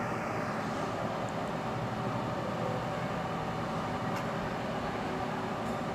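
Engine of heavy road-paving machinery running steadily, mixed with general street noise.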